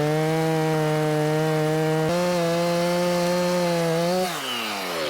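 Two-stroke chainsaw, a Stihl Farm Boss 290, running at full throttle with a steady high engine note, then the revs fall away about four seconds in as the throttle is released.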